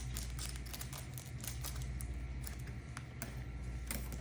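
Scattered light clicks, taps and crinkles of Pokémon booster packs being handled, over a steady low hum.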